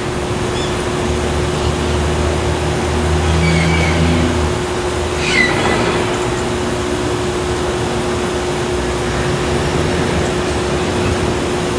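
Steady outdoor background rumble and hiss with a constant faint hum, and two faint short high chirps near the middle, the second falling in pitch.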